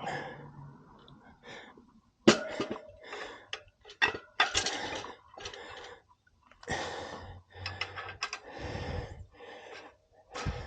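Irregular knocks, clanks and scraping from handling a motorcycle wheel with its tire half off the rim. A sharp knock about two seconds in is the loudest.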